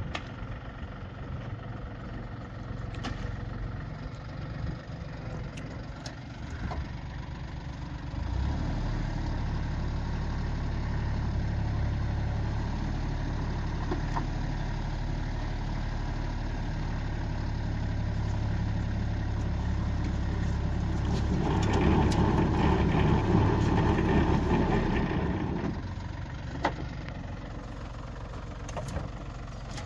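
Small tractor's engine running, at idle at first, then raised to a higher steady speed about eight seconds in. Near the end it gets louder and rougher for a few seconds before dropping back to idle.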